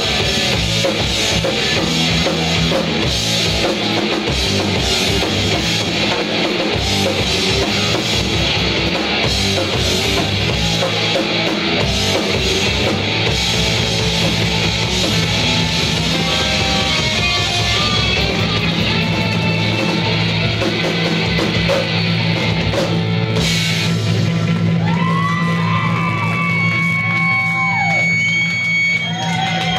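Live rock band with drum kit, electric guitar and bass guitar playing loud. About 24 seconds in the drums stop and the song rings out on held guitar notes that bend up and down in pitch over a steady low note.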